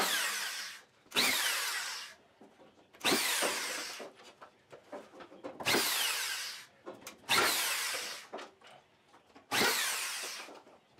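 Corded power drill driving screws into half-inch cement board, in six short runs of about a second each with pauses between. The whine falls in pitch during each run as the screw sinks in.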